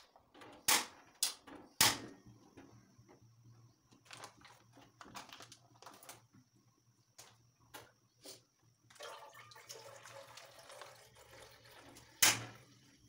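A few sharp clicks as a gas stove burner is lit, then milk pouring from a plastic sachet into an aluminium pot near the end, with a loud knock just before the pour.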